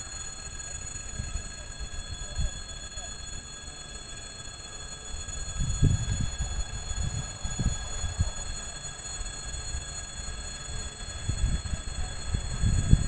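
EP20 electric locomotive and passenger train approaching. A low rumble is broken by clacks of wheels over rail joints, a few around the middle, then growing faster and louder near the end as the train draws near. Steady high-pitched tones run under it.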